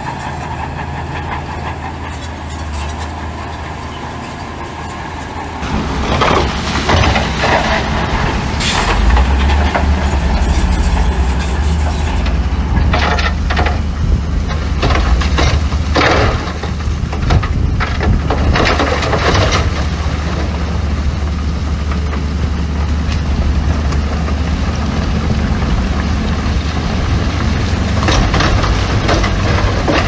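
Heavy earthmoving machinery's diesel engine running under load, with clattering and crunching of stones between about 6 and 20 seconds in.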